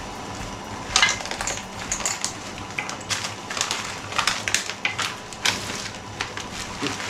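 Hands handling a drone's wiring and plastic parts: irregular clicks, taps and crinkling rustles, starting about a second in.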